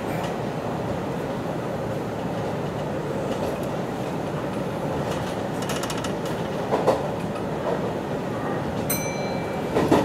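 Hanshin 1000 series electric train running, heard from inside the driver's cab: a steady rumble of wheels on rail, with a quick run of clicks about five to six seconds in and knocks about seven seconds in and near the end. A brief beep sounds shortly before the end.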